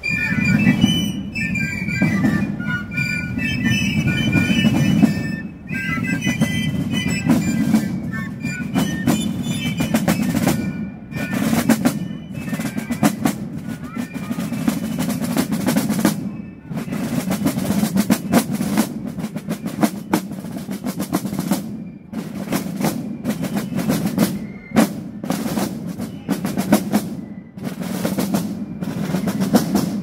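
Basel piccolos and marching drums playing a parade march; the piccolo melody fades out about a third of the way through, leaving rapid snare-style drumming with rolls.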